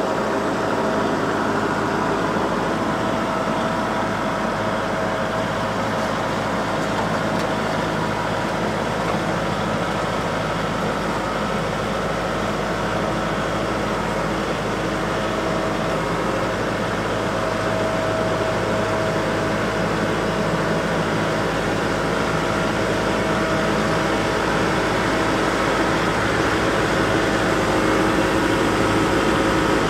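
Kubota MX5400 tractor's diesel engine running steadily under load while it pulls a land plane over fresh gravel, a continuous hum that grows a little louder near the end.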